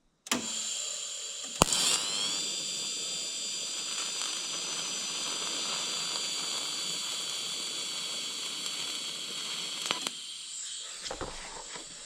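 TIG welding arc on a copper radiator seam: a steady hiss with a high, thin whine. It strikes with a sharp crack about a second and a half in, runs for about eight seconds and stops, leaving a fainter hiss.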